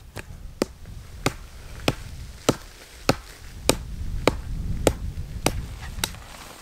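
A small hatchet striking an upright wooden pole, about eleven sharp knocks in a steady rhythm of roughly one every 0.6 s.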